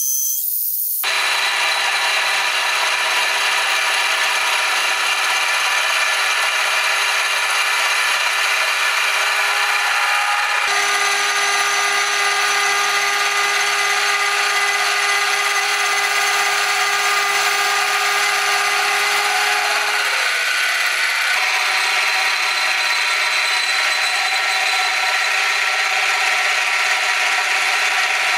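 Milling machine with a disc cutter, every other tooth removed for non-ferrous metal, cutting fins into an aluminium motor radiator: a loud, steady, high cutting noise with several steady tones. Its character changes abruptly about a second in, about eleven seconds in and about twenty-one seconds in.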